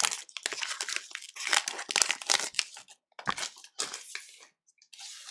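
Foil wrapper of a Panini Select trading-card pack being torn open and crinkled by gloved hands, in a string of irregular crackling bursts.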